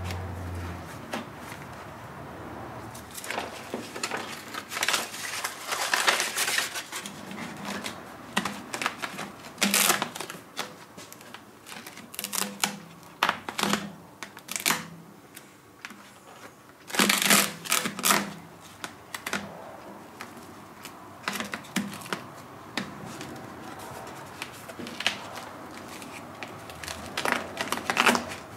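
Hands pressing, shifting and smoothing a textured insulation pad into place on a metal bracket during a test fit: irregular rustling, scraping and tapping, with a few louder bursts between quieter stretches.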